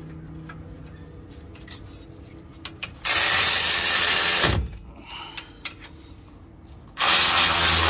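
Impact wrench run in two loud bursts, about a second and a half each, tightening the two 18 mm caliper bracket bolts on a truck's front brake. A few light clicks of parts being handled come before the first burst.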